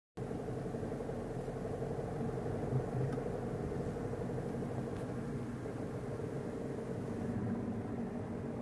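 Car engine and road rumble heard from inside the cabin while driving, a steady drone with a constant hum.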